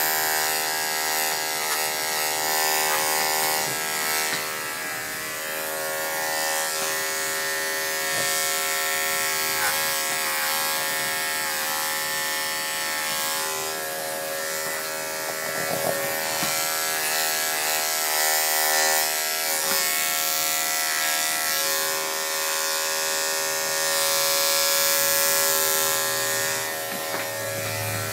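Electric pet grooming clippers running with a steady motor hum that holds the same pitch throughout, trimming a small dog's face.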